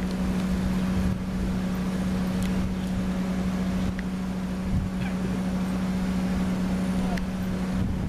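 An engine running at a steady, unchanging speed with a constant low hum.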